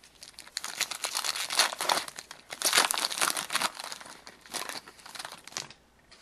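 Wrapper of a hockey card pack crinkling and tearing as it is handled, a dense crackle that starts about half a second in and stops shortly before the end.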